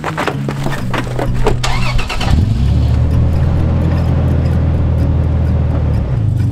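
An engine starts about two seconds in and then runs steadily with a low drone, after a couple of seconds of knocking and clatter.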